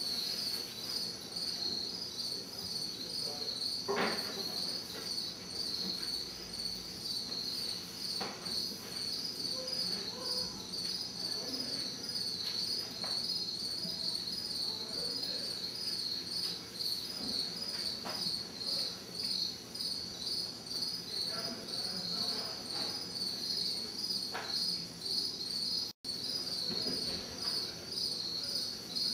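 Crickets chirping in a steady, pulsing chorus, with a few faint knocks now and then, the clearest about four seconds in.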